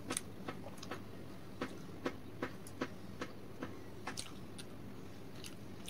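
Faint close-up chewing of a mouthful of food: a string of short wet mouth clicks, about two or three a second, over a low steady background hum.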